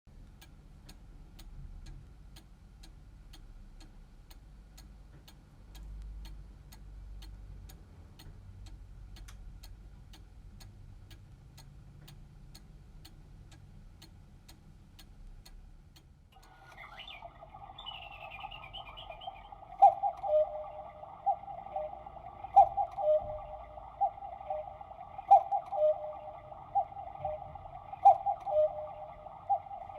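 Quartz Black Forest cuckoo clock ticking steadily, then about sixteen seconds in its electronic sound module starts: a sustained tune-like sound with sharper, louder notes about once a second.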